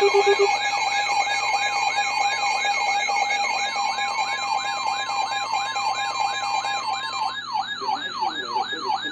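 Several electronic sirens sounding together: a fast falling yelp repeating about three times a second over steady and warbling tones. A few short beeps sound at the very start, and some of the layers cut out about seven seconds in.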